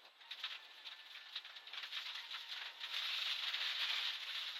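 Rally car in-cabin noise at speed: a steady hiss full of quick rattling clicks, getting louder about three seconds in.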